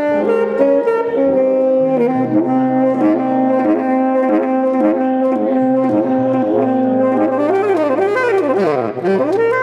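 Instrumental intro music: a melody of held notes over a sustained low bass note, with swooping slides in pitch near the end.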